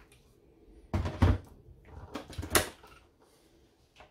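Hard clunks and knocks of a countertop kitchen appliance being handled, in two loud bursts about a second apart, then a light click from its control-panel buttons near the end.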